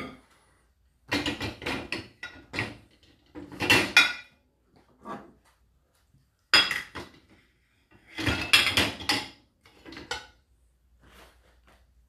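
Dishes, bowls and pans clattering against the wire racks of a Whirlpool dishwasher as it is loaded by hand, with the racks rattling as they are moved. The clatter comes in several short spells with quiet gaps between.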